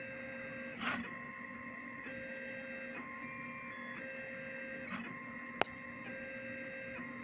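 Stepper motors of a homemade CNC laser engraver whining as the laser head moves along a circuit-board pattern in vinyl film, the pitch jumping in steps every second or so as the moves change. A short rustle about a second in and a single sharp click about five and a half seconds in.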